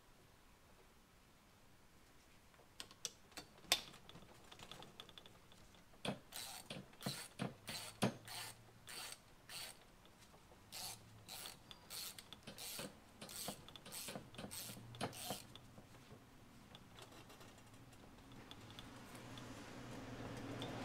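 Hand ratchet clicking faintly in short strokes, about two a second, as it tightens the new 6 mm Allen bolt at the bottom of a motorcycle fork slider. It stops a few seconds before the end.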